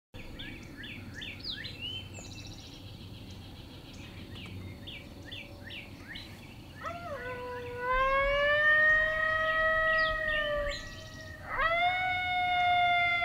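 Songbirds chirping, then from about seven seconds in two long coyote howls from a FoxPro X2S electronic predator caller, each rising and then held steady for several seconds; the howls are the loudest sound.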